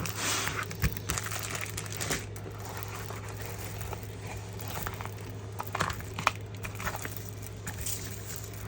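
Packaging crinkling and rustling as a diamond painting kit is handled and unpacked, loudest in the first second, with scattered lighter rustles and a few small clicks after.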